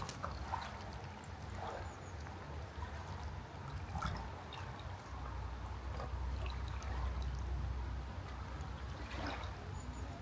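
Lake water lapping and trickling gently, over a steady low rumble.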